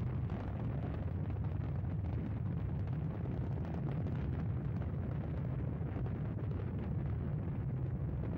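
Space Shuttle's solid rocket boosters and main engines firing during ascent: a steady, deep rushing noise with no let-up.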